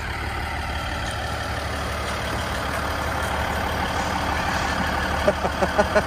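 KiHa 110 series diesel railcar idling at the platform: a steady low engine hum.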